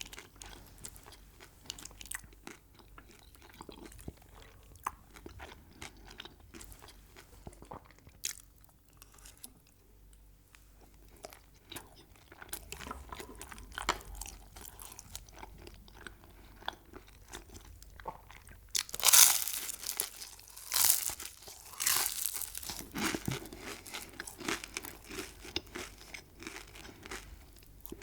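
Close-miked chewing of crunchy food, with many small crackling clicks. Several loud crunchy bites come about two-thirds of the way through.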